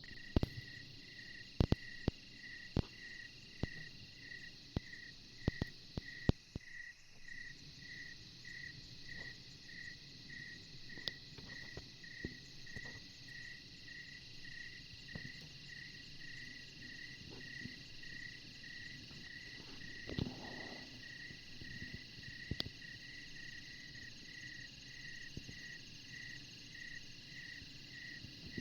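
Insects, cricket-like, chirping in a steady chorus: one chirp repeats regularly, about three times every two seconds, over a continuous high trilling. A few sharp knocks come in the first six seconds.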